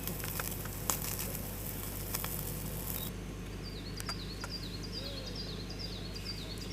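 Outdoor campsite ambience with a steady low hum and a hiss during the first three seconds. After that, a bird gives a quick run of short, high chirps, about three a second.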